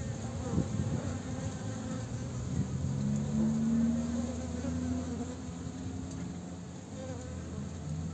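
Bees buzzing in flight: a low droning hum that wavers up and down in pitch, loudest a few seconds in.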